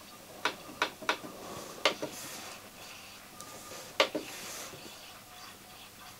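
Sharp clicks from a Schneider CDP7000 CD player with its lid off: front-panel buttons pressed while the disc mechanism searches. Several clicks come bunched in the first two seconds, and the loudest comes about four seconds in. The owner takes the searching and jumping for a tracking problem.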